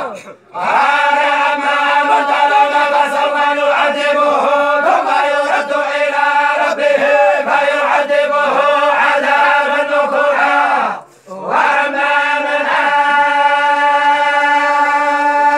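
A group of Moroccan tolba (religious reciters) chanting in unison with long held notes. They break off briefly for breath just after the start and again about eleven seconds in, and end on a long sustained tone.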